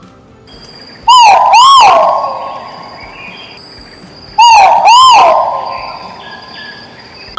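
A bird calling twice, a few seconds apart. Each call is two quick notes that rise and fall in pitch, followed by an echoing tail.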